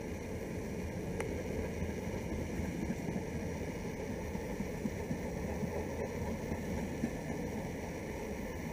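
Container wagons of a freight train rolling past, a steady rumble of wheels on the rails with small irregular knocks.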